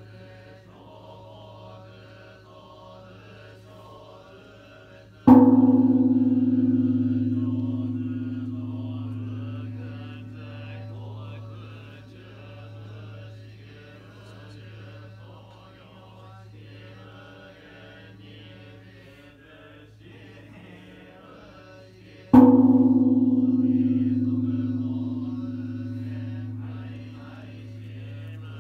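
Kenchō-ji's great bronze bonshō temple bell struck twice, about seventeen seconds apart, tolled as joya no kane, the New Year's Eve bell. Each stroke rings out at once and fades slowly into a long hum. Low, steady sutra chanting runs underneath.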